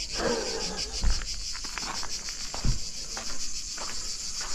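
Cicadas in summer heat, keeping up a steady, fast-pulsing high buzz. Two dull thumps of footsteps come about a second in and near the middle.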